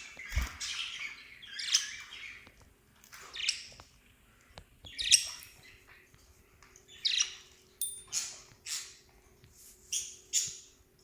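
Small pet parrots chirping and squawking, about ten short, sharp calls at irregular intervals.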